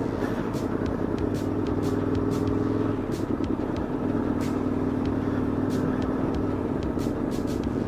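Aprilia Tuono V4 1100 Factory's V4 engine running steadily while the motorcycle is ridden along the road. The engine note breaks briefly about three seconds in, then carries on at a slightly lower pitch.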